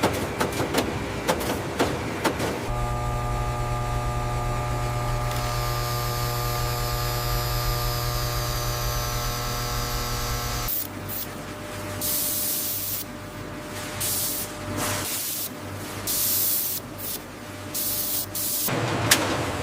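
Electronics assembly-line machinery: rapid clicking for the first few seconds, then a steady machine hum with several held tones, then, from about halfway, repeated bursts of hiss, each lasting a second or so.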